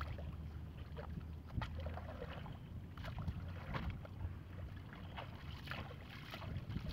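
Shallow water splashing and sloshing in short, irregular bursts as a person wades and works a plastic bucket in ankle-to-knee-deep water, over a low steady rumble.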